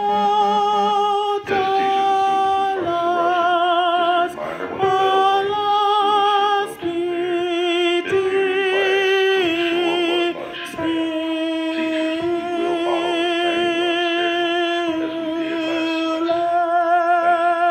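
A single female alto voice singing a choral alto line alone and loudly, holding each note for a second or two with vibrato.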